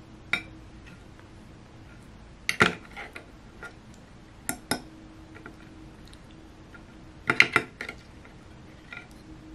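Metal fork clinking and scraping against an open sardine tin and a plate as fish are lifted out. There are a few scattered clicks, a louder pair about two and a half seconds in, and a quick cluster a little past seven seconds.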